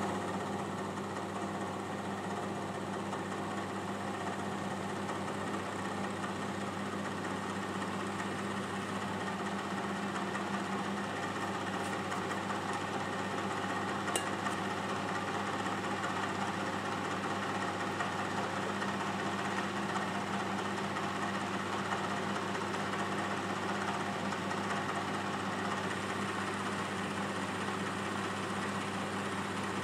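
Milling machine running steadily at about 500 RPM while a shop-ground tungsten carbide D-bit cuts into a hardened high-carbon steel file: an even motor hum under a steady cutting hiss, with one short tick about halfway through.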